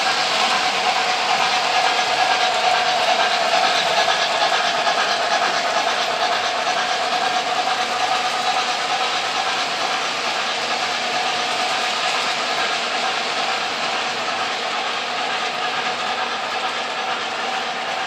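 O gauge model freight train running on three-rail track: a steady rumble and hum of metal wheels and motor, loudest a few seconds in and slowly easing as the cars and caboose roll past.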